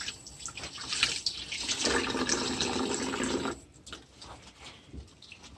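Water splashing and trickling in the basin around a puppy being bathed, stopping about three and a half seconds in.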